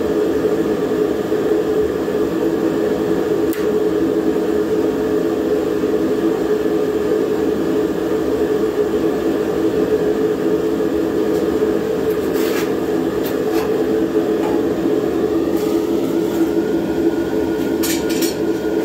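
Steady hum and rush of a gas flame heating a ladle of Babbitt metal, with a few light clicks and taps; a higher steady tone joins in about 16 seconds in.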